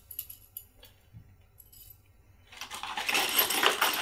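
Small metal mounting hardware (a U-bolt with washers and hex nuts) clinking as it is handled: a few light clicks at first, then a busier, louder run of clinking and rattling from about two and a half seconds in.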